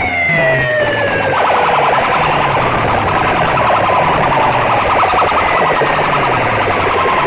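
Electronic siren effect played very loud through horn loudspeakers. A falling wail in the first second and a half gives way to a fast buzzing warble, over a low repeating beat.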